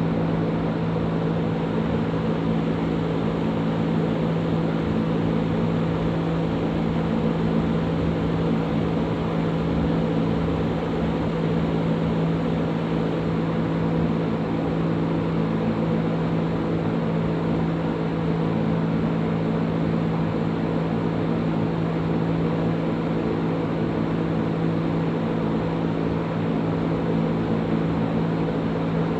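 Electric fan running steadily: a constant low motor hum over an even rush of moving air.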